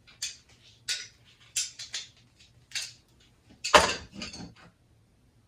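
Metal clinks and scrapes from channel-lock pliers and the old shower head's loosened threads being worked off the shower arm, about six sharp knocks spread out, the loudest a heavier clank near four seconds in.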